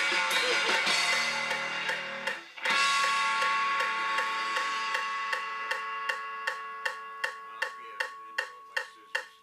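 Rock band with electric guitar and drum kit playing, then breaking off about two and a half seconds in and landing on one held chord that rings out and slowly fades. Through the fade a metronome click track ticks steadily, a little under three ticks a second.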